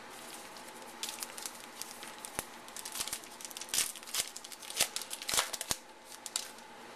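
Crimped foil wrapper of a 2011 Topps Allen & Ginter card pack being torn open and crinkled by hand: a run of irregular crackles and rips, loudest about four to five and a half seconds in.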